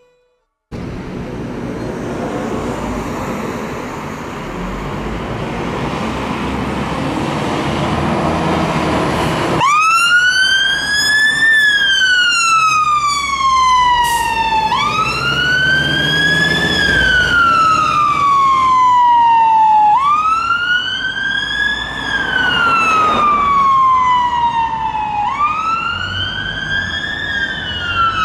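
A fire engine's diesel engine and road noise building up, then its wail siren starts about ten seconds in. The siren sweeps up quickly and falls away more slowly, about once every five seconds, four times over.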